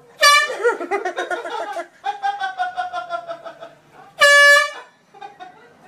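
Two short, loud blasts of a horn, one just after the start and one about four seconds in, each a steady single note. Between them a voice cries out with wavering, breaking sounds.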